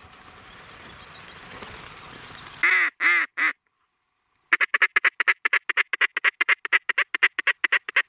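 A steady rustling haze of field noise, then about two and a half seconds in, three loud duck quacks. After a second of dead silence, a fast run of quacking chatter, six or seven notes a second, continues to the end.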